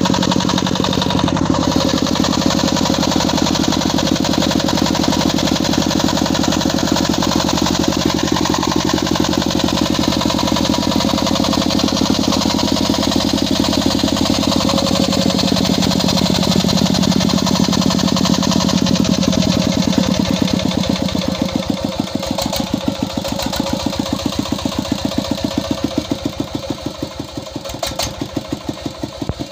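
LD 25 HP Peter-type diesel engine running steadily. About twenty seconds in it slows and gets quieter, and its separate firing beats become distinct as it runs down.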